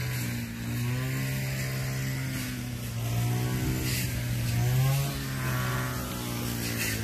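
Small two-stroke engine of a grass-cutting brush cutter running steadily, its pitch rising and falling a few times as the throttle is worked.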